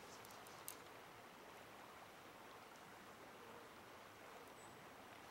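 Near silence: a faint, steady rush of river water flowing around a wading angler, with one small click about a second in.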